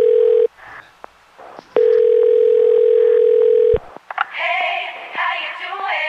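Telephone ringing tone: two long, steady, single-pitch beeps of about two seconds each with a short gap between them, opening a pop track. The tone cuts off about four seconds in, and a woman's voice and singing with music follow.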